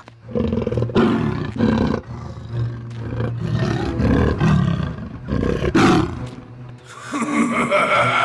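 Cartoon tiger-man voices roaring and growling in loud, overlapping bursts, several at once.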